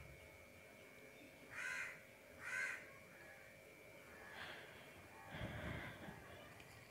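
Two short animal calls about a second apart, the loudest sounds, over a faint steady hum; a fainter stretch of scraping noise follows near the end.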